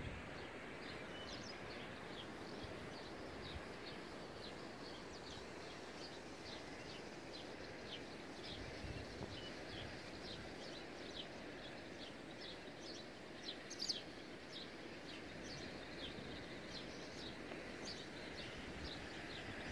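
Outdoor ambience: small birds chirping often and irregularly over a steady background hiss, with one brief sharp sound about two-thirds of the way through.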